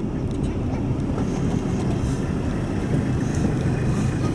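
Four-wheel drive's engine and tyres heard from inside the cabin as it rolls slowly along a dirt track, a steady low rumble.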